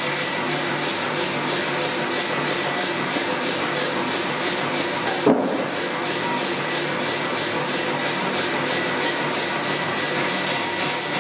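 Steady rhythmic rasping or scraping, about three strokes a second, with a single sharp knock about halfway through.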